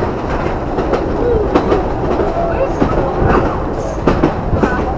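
Wooden railway carriage of the Sóller train rumbling along the track, heard from inside, with the wheels clattering and clicking over the rails.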